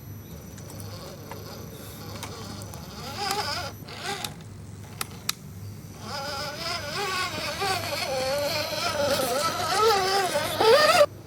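RC rock crawler's small electric motor and gearbox whining, its pitch wavering up and down with the throttle. It runs briefly about three seconds in, then again from about six seconds, growing louder and stopping abruptly near the end. A few sharp clicks.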